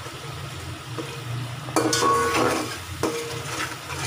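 A steel fork stirs and scrapes thick tomato masala gravy frying in an aluminium pot, with sizzling throughout. The fork knocks against the pot a few times, loudest about two seconds in, and each knock rings briefly. A steady low hum runs underneath.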